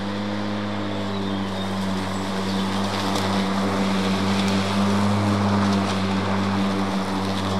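Stiga Twinclip 950 cordless battery lawnmower mowing in side-discharge mode: a steady electric motor and blade hum over the hiss of grass being cut and thrown out the side.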